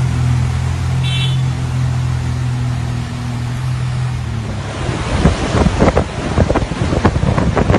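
A vehicle engine running with a steady low hum as cars drive through a flooded street; about five seconds in it gives way to strong storm wind gusting and buffeting the microphone.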